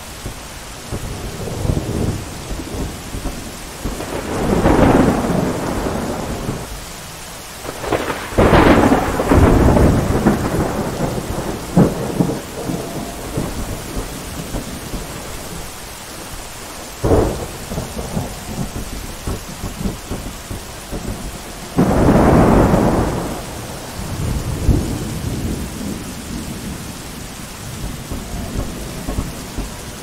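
Steady heavy rain with several rolls of thunder, low rumbles swelling and fading, and a sharp crack a little past halfway.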